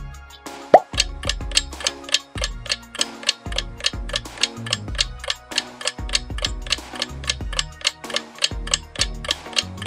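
Quick, even clock-like ticking, about three ticks a second, over light background music with a bass line; a short rising plop sound about a second in.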